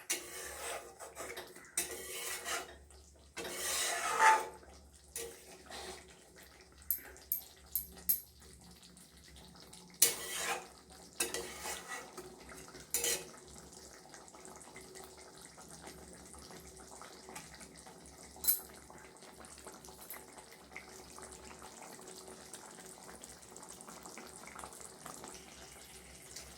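Metal spatula knocking and scraping against a kadai as the curry is stirred, with a run of clinks in the first half and a single one later, over a faint steady background of the pot cooking.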